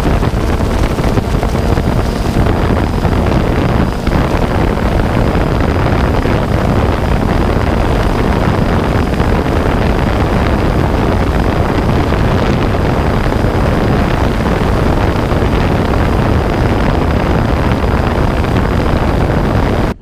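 Steady loud rush of a camera drone's propellers and motors, with wind over its onboard microphone and a thin high motor whine held at one pitch.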